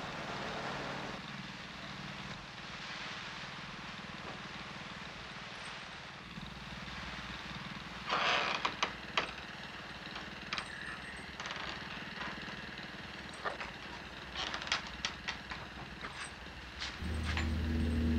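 A steady low mechanical drone like a running motor, with scattered knocks and clatters; a cluster of sharp, louder knocks comes about eight seconds in. Near the end the low drone swells much louder.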